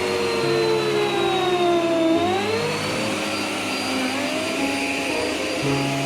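Polti Forzaspira corded stick vacuum cleaner running while vacuuming up hair, a steady rushing hiss with a motor whine that sinks slowly in pitch and then rises back about two seconds in.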